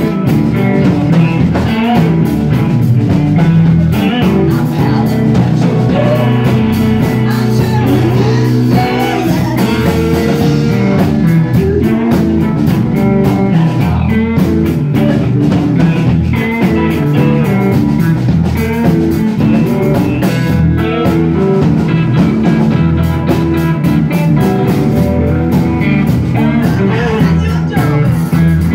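Live blues band playing: electric guitar over bass guitar and a drum kit, at a steady full level.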